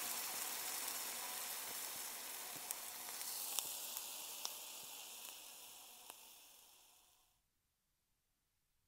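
Stir-fried goya champuru sizzling in a hot iron wok, with a few sharp clicks of a wooden spatula against the pan. The sizzle fades and stops about seven seconds in.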